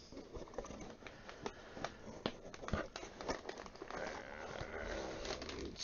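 Crumpled brown packing paper rustling and crinkling as it is pulled out of a cardboard box, with scattered light clicks and scrapes of the cardboard.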